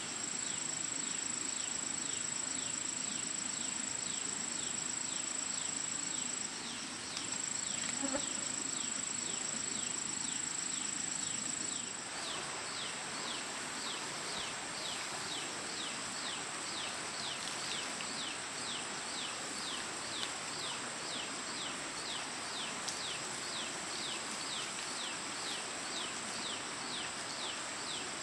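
Insects calling outdoors: a steady, high-pitched buzz overlaid with a rhythmic, repeated chirp, a few chirps a second. The buzz dips briefly about six and a half seconds in.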